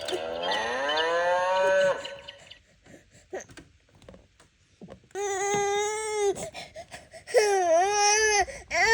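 A sound book's recorded cow moo, rising in pitch for about two seconds. A few seconds later an eight-month-old baby bursts into loud crying, set off by the moo, in two long wails with a third starting near the end.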